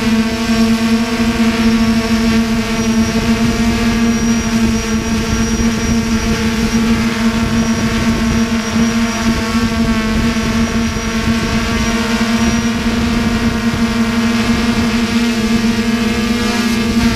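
DJI F330 Flame Wheel quadcopter's brushless motors and propellers running in flight, a steady buzzing whine with a fixed pitch that wavers slightly, heard up close from the camera mounted on the frame.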